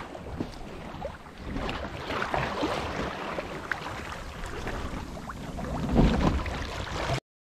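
Water rushing and splashing along a sailboat's hull as it sails, a steady wash with small splashes, swelling louder about six seconds in, then stopping abruptly near the end.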